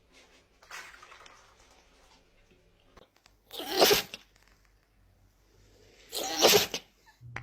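A dog sneezing twice, two short sharp bursts about two and a half seconds apart, the first a little under four seconds in, with a fainter breathy burst about a second in.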